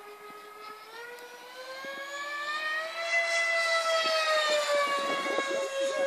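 Radio-controlled model MiG-29 jet flying overhead, its motor giving a high whine. The whine rises in pitch and grows louder over the first three seconds, then drops slightly and holds steady.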